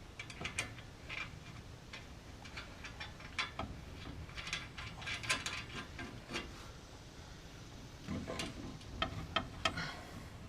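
Scattered light metal clicks and knocks as a steering knuckle is worked onto the lower ball joint stud, coming in clusters around the middle and again near the end.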